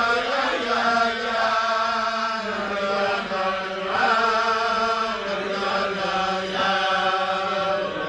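A group of men singing a slow Chabad niggun together in unison, with long held notes that slide between pitches.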